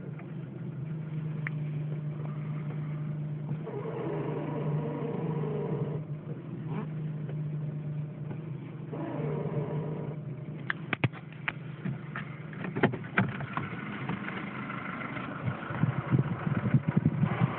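Volkswagen Golf Mk4 with its engine running at a steady hum. From a little past halfway, sharp clicks and short creaks start over the hum; this is the unexplained squeak whose cause is unknown.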